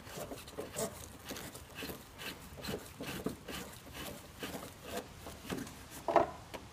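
Ratchet on a long socket extension clicking in short, irregular strokes as the engine mount bolts are tightened, with one louder metallic clank near the end.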